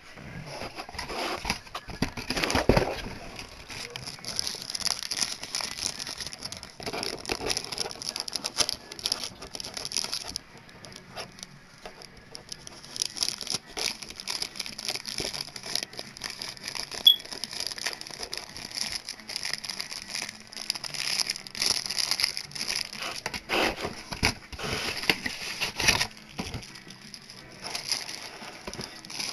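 Clear plastic wrapping crinkling and crackling irregularly as packaged items are handled, with a few louder knocks of handling.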